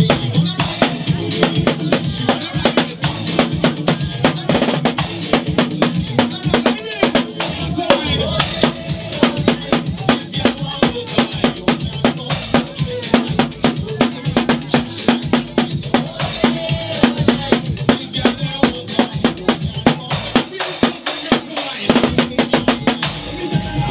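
Drum kit played live with sticks in a fast, busy rhythm of drum hits and cymbal strikes, over steady backing music.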